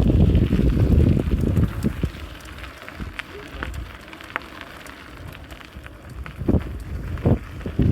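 Wind buffeting the microphone while moving, loud for the first two seconds and then easing off, with scattered light clicks and a couple of low thumps near the end.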